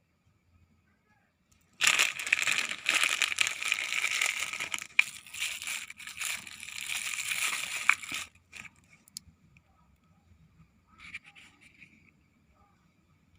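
Plastic packaging crinkling and rustling as it is handled and opened, dense and loud with a few sharp clicks, for about six seconds before stopping suddenly; a brief, fainter rustle follows near the end.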